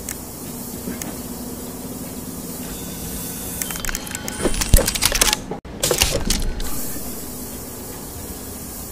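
Mechanical sound effects for an animated robot drawing machine: a steady whirring hum with hiss. From about three and a half to six and a half seconds in, a louder run of clicks and crackles breaks in, with a brief sudden cut-out partway through.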